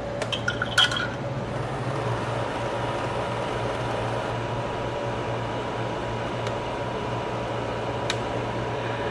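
A few sharp clicks of small plastic and metal parts in the first second as the slide projector's slide holder is handled, over a steady hum; a thin, steady whine joins about a second and a half in.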